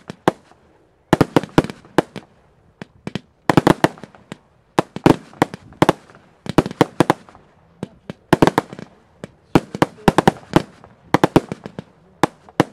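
Aerial fireworks going off: sharp bangs in quick clusters of several at a time, a new cluster roughly every second, with short quieter gaps between.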